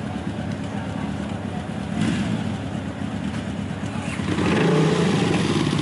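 Motorcycle engine running, louder from about two seconds in, then revved near the end.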